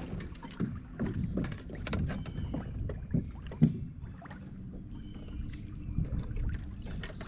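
Water lapping and slapping against a small boat's hull, with scattered knocks and clicks. A faint steady hum sets in about halfway.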